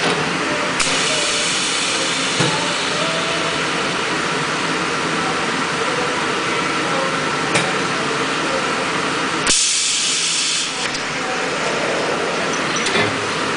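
High-frequency plastic welding machine running through a press cycle: steady machine noise with clicks and hissing of compressed air from its pneumatics. A sharp click and hiss start about a second in, and a loud burst of air exhaust lasting about a second comes about two-thirds through as the press lets go, with a few more clicks near the end.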